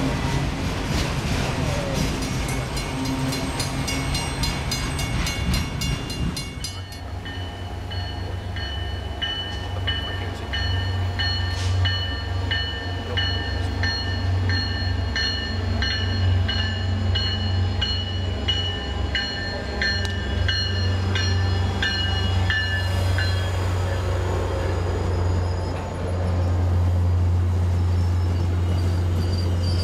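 A freight train of autorack cars rolls past, its wheels and cars rattling, until a cut about seven seconds in. Then an MBTA commuter train's diesel locomotive approaches with a steady low engine drone, accompanied by a repeated ringing tone that sounds every half second or so. Near the end the train passes close by and is at its loudest.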